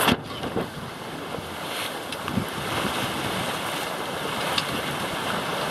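Wind buffeting the microphone and water rushing along the hull of a small sailboat (a Hawk 20) running downwind through choppy sea, with a short loud burst at the very start and a few faint knocks.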